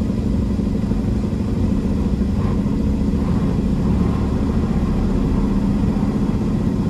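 Peterbilt semi truck's diesel engine running steadily.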